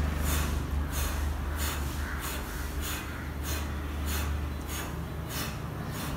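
A man breathing out hard in short, forceful puffs, about ten of them at an even pace, each exhalation timed to a swing of his arms in a warm-up exercise. A steady low rumble runs underneath.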